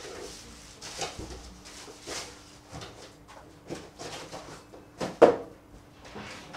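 Unboxing handling sounds: plastic wrapping rustling and cardboard scraping, broken by a series of knocks, the loudest a sharp knock about five seconds in as the soundbar is handled on the table. A faint steady hum runs underneath.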